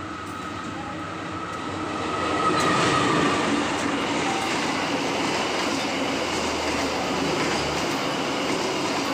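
Passenger train passing close by, hauled by a CC 201 diesel-electric locomotive. The sound grows louder as the train approaches, peaks about three seconds in as it passes, then settles into the steady run of the coaches' wheels on the rails.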